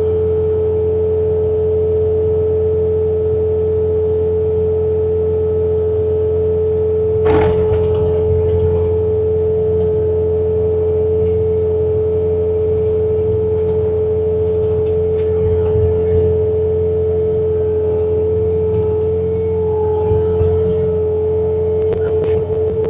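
Bobcat T66 compact track loader running its hydraulic snowblower attachment: a steady low engine rumble under a constant high whine, with an occasional knock. The sound cuts off abruptly at the very end.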